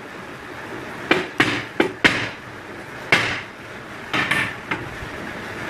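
Claw hammer striking the steel punch of a stainless steel slug mould, pressing soft lead into a 14-grain air-rifle slug. Several sharp metal-on-metal blows come at uneven intervals, some followed by a short ring.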